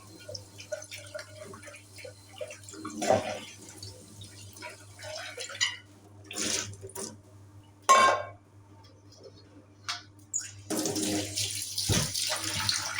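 Water from a tap running into a sink in short spurts, then for longer near the end, with scattered knocks and clinks.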